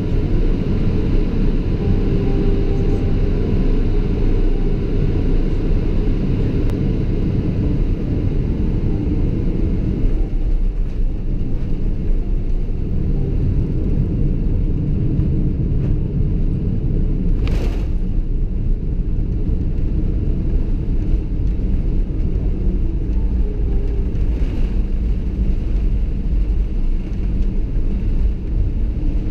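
Steady low rumble of engine and airflow noise inside the cabin of a Boeing 777-200ER, heard from a window seat during landing and rollout. There is a brief thump about ten seconds in and a short hiss a little past halfway.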